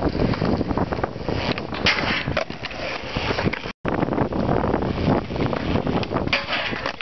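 Wind buffeting the camera microphone over skateboard wheels rolling on concrete, with the board scraping along a metal rail near the end. The sound drops out for a moment about halfway.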